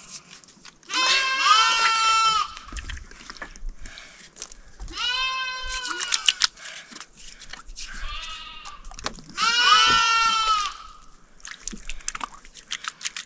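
Sheep bleating: four long, wavering calls a few seconds apart, the third one fainter.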